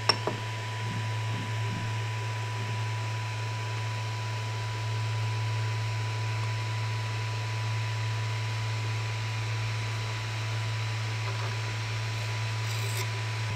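Ender 3 V2 3D printer running a first-layer print: a steady fan hum with a hiss. There is one brief click right at the start.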